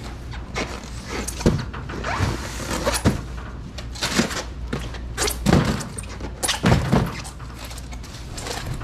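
Styrofoam seafood boxes being handled and set down on a truck bed: a run of irregular thuds and knocks, several of them sharp and loud, over a steady low hum.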